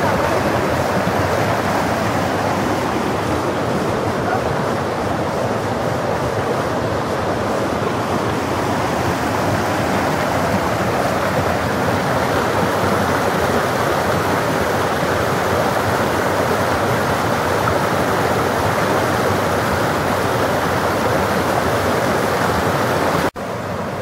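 Fast, high-running woodland stream rushing over a small cascade close by: a loud, steady rush of white water. It cuts out for an instant near the end and carries on a little quieter.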